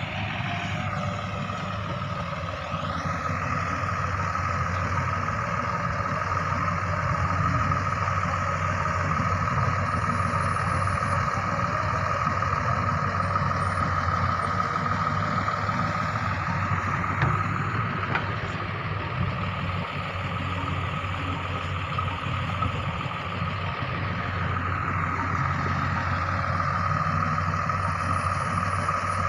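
Ace AX130 backhoe loader's diesel engine running steadily as it works, with a steady high whine over the engine.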